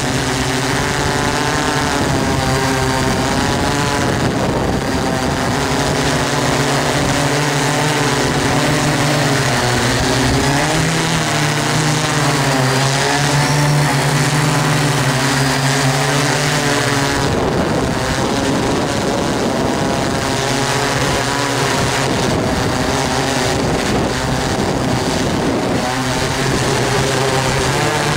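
DJI S800 hexacopter's six Tiger MN4014 320KV motors with 15-inch propellers humming in flight, the pitch wavering and beating as the motors keep correcting against gusty wind. About two-thirds of the way through, the hum briefly gives way to a rush of wind noise.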